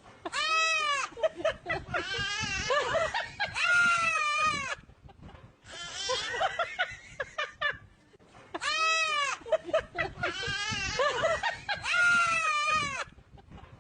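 An animal calling again and again, each call arching up and then down in pitch, in two runs with a pause of about three seconds between them.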